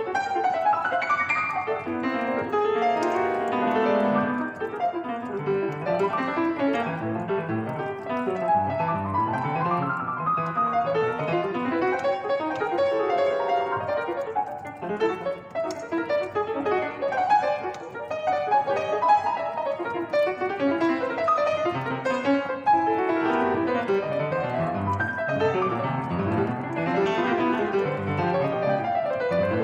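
Solo piano playing a dense, busy passage of many fast notes across the keyboard.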